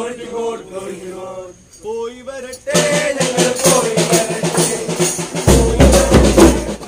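Christmas carol group singing in chorus; about three seconds in, drums and percussion come in with a quick, even beat, and near the end a heavy low drumbeat joins.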